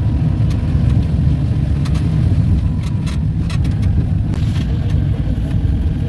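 Steady low engine and road rumble inside the cab of a Suzuki driving slowly on a wet, rutted dirt road. Scattered short knocks and rattles come through now and then.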